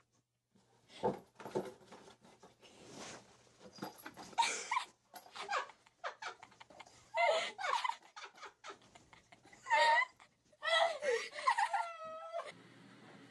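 A cat with its head in a small box meowing several times, ending in one longer wavering meow.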